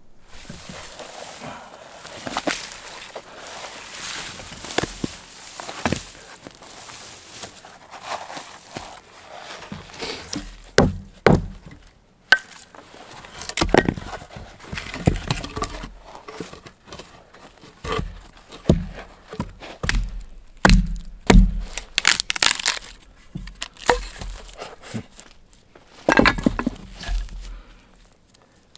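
Axe chopping into a log, with sharp strikes coming irregularly every second or two.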